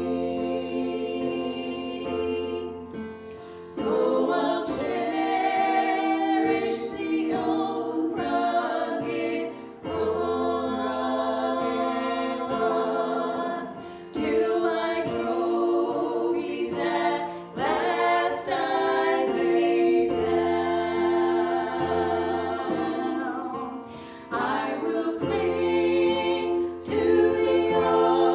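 A worship song sung by several voices in harmony. It comes in phrases a few seconds long, with short breaks between them.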